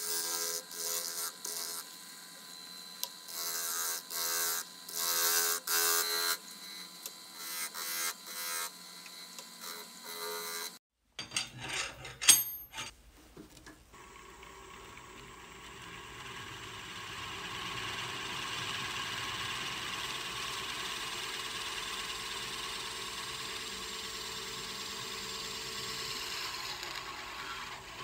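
Wood lathe spinning a wood-and-resin disc while a hand-held gouge cuts it in short, repeated scraping strokes over the lathe's motor hum. About eleven seconds in, a few sharp clicks, then a twist drill bit bores into the centre of the spinning blank with a steady cutting noise that builds over a few seconds and holds.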